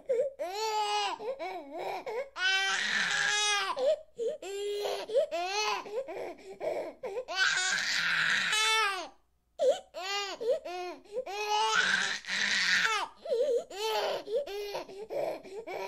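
A baby crying: three long, loud wails about four to five seconds apart, with short, choppy sobbing cries between them and a brief break in the middle.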